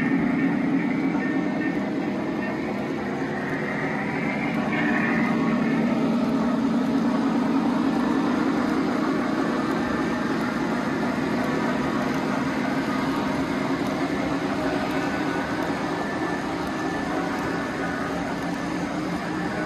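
Three-rail O-gauge model passenger cars rolling along the track: a steady rolling noise of metal wheels on rail.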